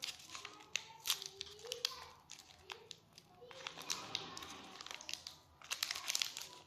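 Candy wrapper crinkling and crackling in irregular bursts as fingers twist and pull it open.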